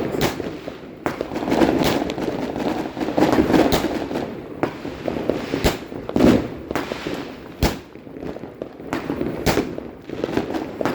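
Fireworks and firecrackers going off: sharp bangs at irregular intervals over continuous crackling.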